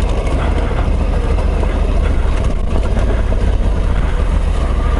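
Honda CRF1100L Africa Twin's parallel-twin engine running steadily at low speed.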